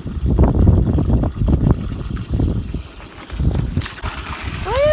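Water running through a newly hung rain gutter and downspout, trickling and splashing in uneven surges. A goat starts bleating near the end.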